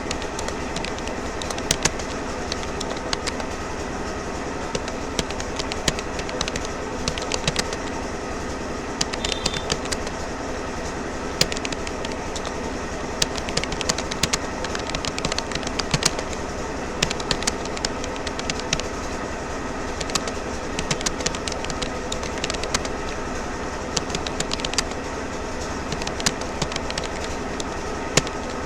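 Keystrokes on a Rapoo computer keyboard during continuous touch typing, a few irregular clicks a second, over a steady background hum.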